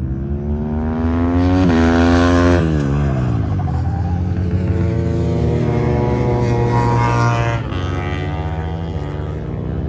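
Racing motorcycle engines at high revs. The pitch climbs, drops sharply at a gear change about one and a half seconds in, climbs again and then falls away. A second rise and fall comes a few seconds later, over a steady low drone.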